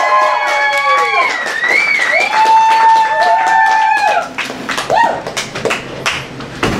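Several voices hold the final notes of a song together in harmony, with a rise and fall in pitch before the song cuts off about four seconds in. Audience clapping and a short whoop follow.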